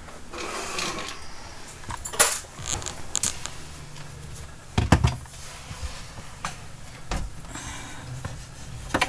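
Handling noise from a roller-shade mounting clip and screwdriver against the RV window frame: a few sharp clicks and knocks, the loudest a thump about five seconds in.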